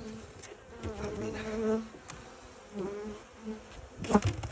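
Honeybees buzzing over an open hive's frames, a steady drone with a brief knock about four seconds in.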